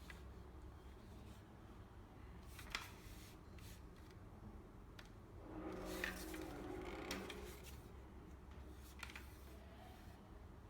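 Plastic toy shotgun being handled: a few scattered clicks and a short stretch of rattling about halfway through, over a faint steady low hum.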